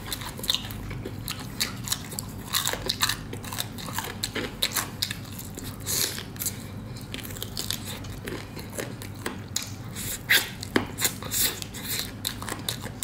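Biting and chewing a crispy fried chicken drumstick, with many sharp, irregular crunches of the fried coating as the meat is pulled from the bone.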